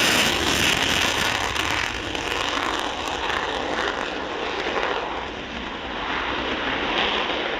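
Jet noise from Panavia Tornado strike jets taking off, their twin RB199 turbofans at takeoff power: a loud, continuous noise that dips slightly in the middle and builds again near the end.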